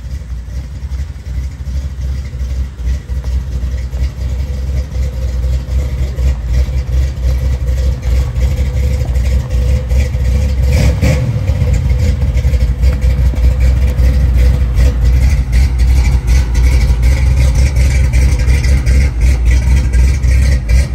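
1980 Chevrolet C10 pickup's engine running at idle, a deep rapid exhaust pulse that grows steadily louder as the tailpipe end is neared, with a brief swell about halfway through.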